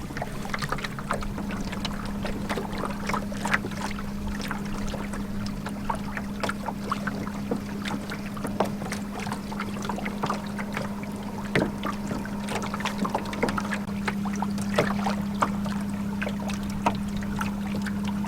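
Battery-powered electric motor on a canoe running steadily with a low, even hum at speed. Water slaps and splashes against the hull in quick, irregular ticks.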